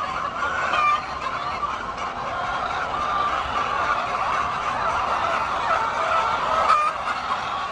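A flock of chickens clucking and calling, many overlapping calls forming a steady chatter.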